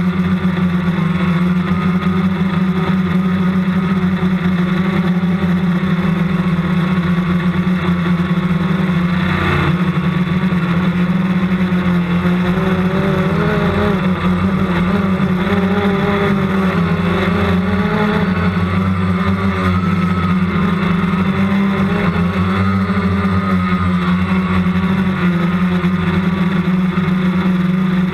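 Motors and propellers of a camera-carrying RC aircraft droning steadily, with several whining tones above the drone that waver up and down in pitch.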